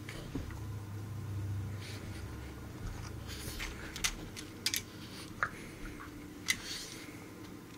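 Two dogs play-fighting: a low growl over the first three seconds or so, then scuffling with several sharp clicks and snaps.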